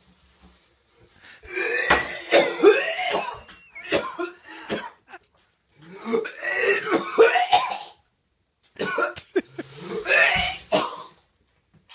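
A man retching and dry-heaving in three loud bouts with short silences between, gagging at the stench of a hair clog pulled from a shower drain trap.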